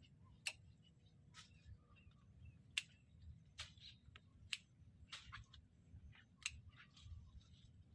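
Hand cutters snipping Dendrobium orchid flower stems for market: sharp single clicks coming irregularly, about one a second.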